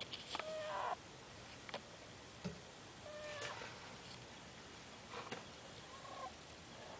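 Sleeping ferret snoring: three short, squeaky, whistling snores, roughly one every three seconds.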